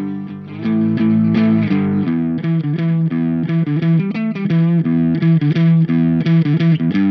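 Fender Stratocaster electric guitar loop played back from a looper through a TC Electronic MojoMojo overdrive pedal: quick picked notes and chords with a driven tone. The first chord rings quietly, then the riff comes in louder about half a second in.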